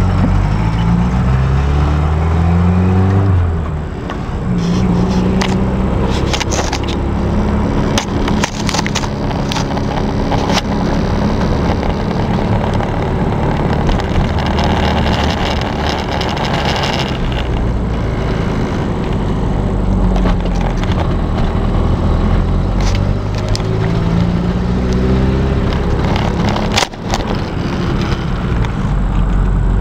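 A Jeep pickup truck's engine and exhaust, heard from inside the cab while driving. The pitch climbs and drops several times as the truck speeds up and shifts gears. Scattered knocks and rattles come through, with one sharp knock near the end.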